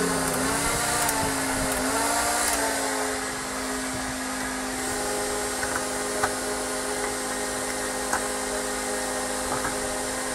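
A running motor whines steadily: its pitch wavers for the first few seconds, then holds one tone. A few light clicks come from the cab door latch being handled.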